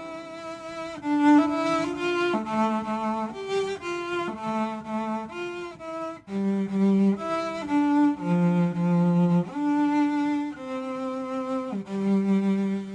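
Sampled solo bowed-string voice in the cello range played from a keyboard: a slow melody of sustained notes, some sliding up into pitch.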